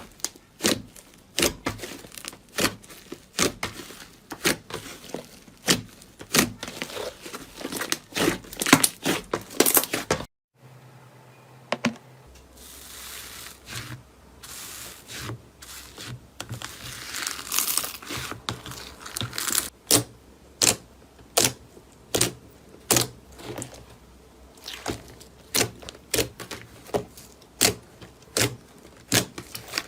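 Slime being squeezed and worked by hand, giving a run of sharp wet pops and clicks about two a second. About ten seconds in there is a brief silence, then a stretch of crinkly rustling before the pops resume.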